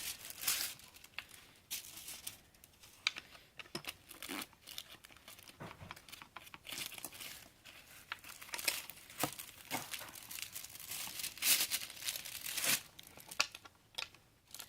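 Packaging being handled: plastic and paper wrappings crinkling and tearing in irregular bursts.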